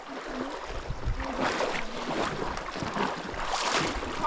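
River water rushing and splashing, with wind buffeting the microphone.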